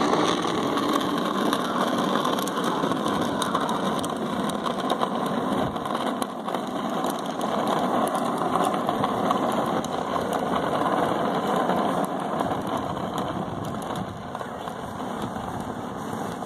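Small wheels of a PlasmaCar ride-on toy rolling over rough asphalt: a steady rolling rumble that fades over the last few seconds as the toy moves away.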